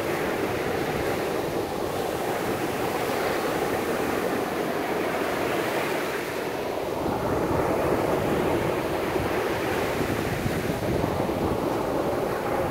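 Small waves washing up on a sandy shore, a steady hiss of surf that swells a little louder past the middle, with wind rumbling on the microphone.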